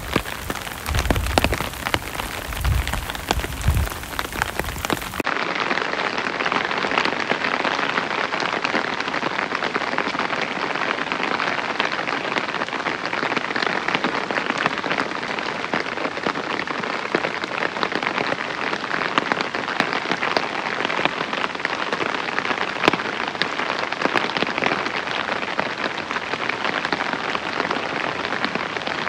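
Steady rain falling, a dense patter of drops. In the first five seconds wind buffets the microphone. Then, about five seconds in, the sound switches abruptly to an even, duller rain.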